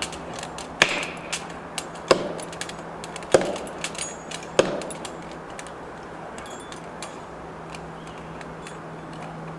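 Heavy striking blows on wood, four loud ones about a second and a quarter apart with lighter knocks between, stopping about halfway through; a steady low hum runs underneath.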